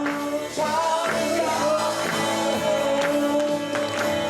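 Gospel song sung by male voices with band accompaniment, holding long, steady notes.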